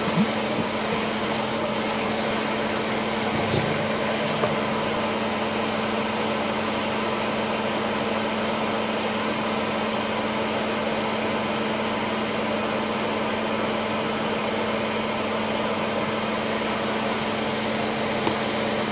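Fume extractor fan running with a steady hum, with a couple of faint clicks a few seconds in.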